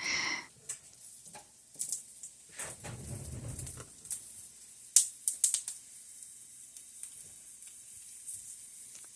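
Chopped onion frying in very hot coconut oil, the oil crackling and popping in irregular sharp ticks, with a few louder knocks along the way.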